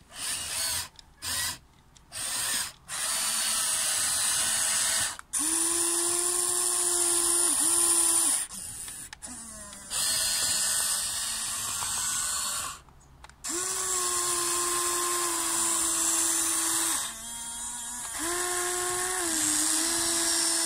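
Electric motors and gearboxes of a Huina 1593 RC excavator whining in bursts of a few seconds, the pitch rising and falling as it drives its tracks and works its arm through snow. A few short spurts come first, then longer runs with brief pauses between them.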